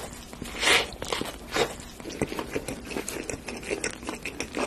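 Close-up eating sounds: a crunchy bite into a burger stuffed with a fried chicken cutlet just under a second in, then steady chewing with many small crisp crunches.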